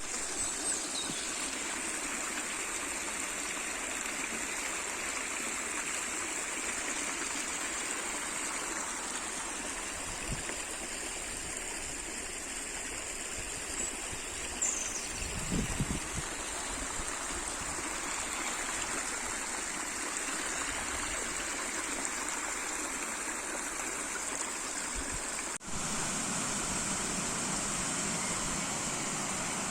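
Water of a stream flowing and babbling steadily, with a few low thuds about halfway through and a brief dropout a little before the end.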